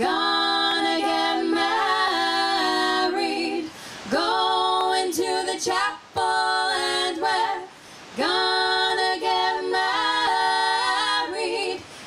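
Three women singing a cappella in close harmony, in four phrases with short breaks between them.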